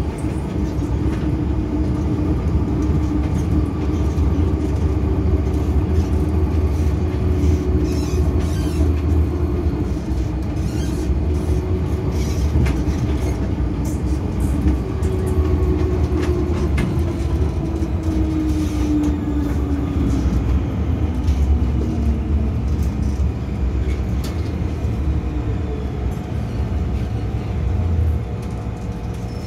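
MTR M-Train electric train heard from inside the car while running: a steady low rumble with a motor whine that glides up and down, and scattered clicks from the wheels on the rails. The whine falls away in the second half, and the sound drops just before the end as the train comes into a station.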